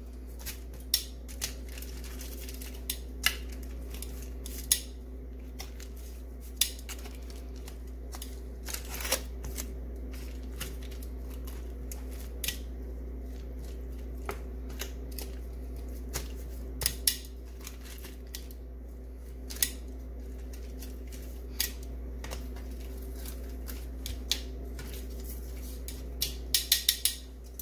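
Metal kitchen tongs clicking and tapping on a foil-lined sheet pan as raw chicken thighs are turned over, in scattered sharp clicks with a quick run of several clicks near the end. A steady low hum lies under it.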